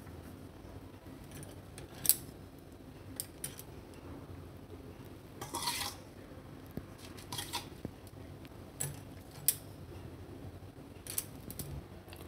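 Light clinks and scrapes of a utensil against dishes as ground spice powder is emptied into a ceramic bowl. A few scattered clicks, the sharpest about two seconds in, and a brief scrape near the middle.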